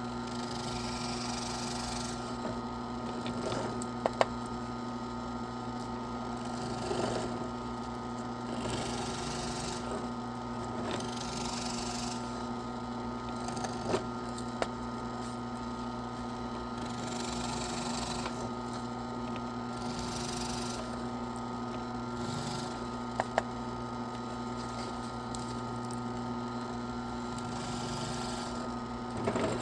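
A small electric power tool runs steadily with a constant hum while grinding sawdust out of resin-rich pine fatwood. Rasping swells come every second or two as it bites into the wood, with a few sharp clicks.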